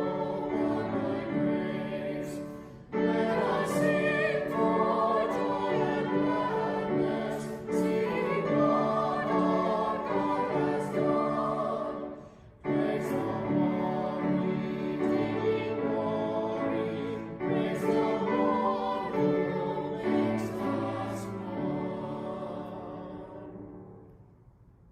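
Choral music sung with a string or orchestral accompaniment, in long sustained phrases with two brief pauses. It fades out near the end.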